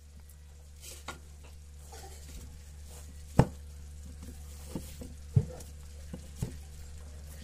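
Light scattered taps and clicks of a small knife against a plate while peeling the charred skin off roasted eggplants, the two sharpest about three and a half and five and a half seconds in, over a low steady hum.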